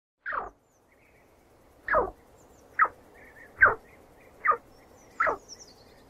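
Chinchilla squeaking: six short, sharp squeaks, each falling in pitch, about a second apart. The recording is processed as 8D audio, panned around the listener.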